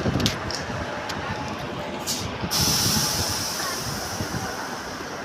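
Low rumbling noise, with a short sharp hiss about two seconds in that turns into a long, high hiss slowly dying away, like air being let out of a line.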